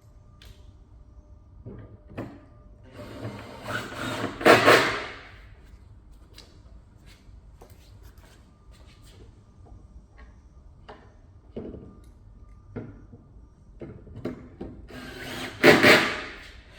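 Plywood van-racking panels and shelf being handled and bolted together: scattered light clicks and knocks, with two louder rubbing, scraping noises about four seconds in and near the end.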